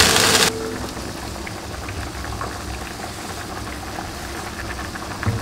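Ground meat and diced onion frying in a cast-iron pot: a steady sizzle, louder for the first half second, with small scraping clicks from a silicone spatula stirring. Near the end, diced potatoes tumble in off a cutting board with a few soft thuds.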